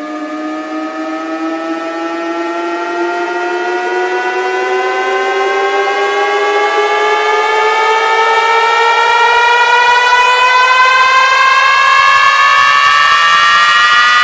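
A siren-like tone winding slowly upward in pitch and growing steadily louder, like an air-raid siren spinning up.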